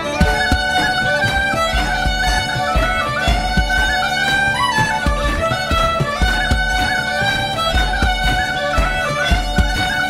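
Instrumental music led by a fiddle playing a quick melody over a steady bass beat.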